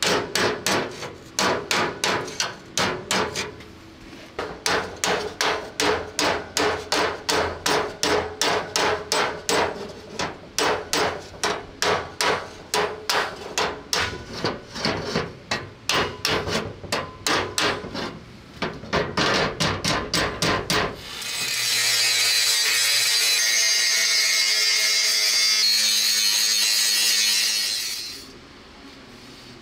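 Steel hammer striking a steel dolly block held against a bent steel ammunition-rack plate, rapid blows about three a second with brief pauses, to straighten the plate. About two-thirds through the hammering stops and a steady, harsh hiss from a workshop tool runs for about seven seconds, then cuts off.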